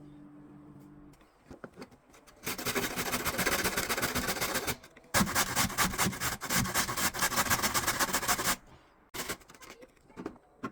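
Vegetables being shredded in fast, even strokes: two runs of a few seconds each, with a short pause between them.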